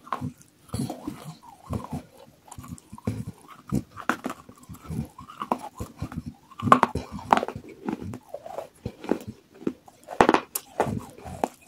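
A person chewing and crunching pieces of water-soaked terracotta clay pot, heard close up as a run of irregular crunches and mouth sounds.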